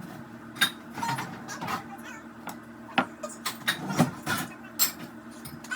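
Dishes clinking and clattering several times as they are washed by hand, over background music.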